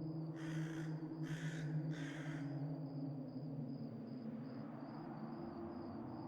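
A crow caws three times in quick succession, each harsh call about half a second long. Underneath run a steady low drone and a high chirp pulsing a few times a second.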